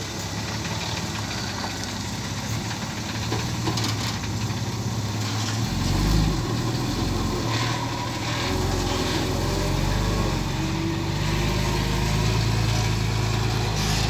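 Loaded dump truck's diesel engine running. It hums steadily at first, then from about six seconds in a deeper, louder rumble comes in as the truck pulls, with the pitch rising and falling a couple of times.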